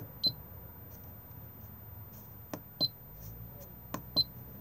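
Coachman caravan control panel being operated: three button presses, each a short click followed a moment later by a brief high beep from the panel.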